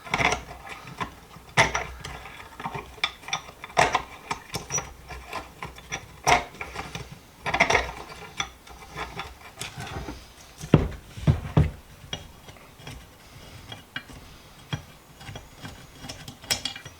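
Metal parts of a heavily rusted bench vise being worked loose by hand with tools: irregular scraping, clicking and clanking, with a few heavier knocks about eleven seconds in.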